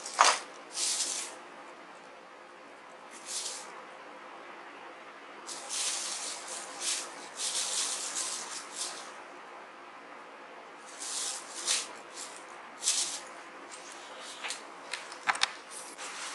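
Intermittent rustling and light rattling in short hissy bursts, densest in the middle, from small parts being handled and searched through.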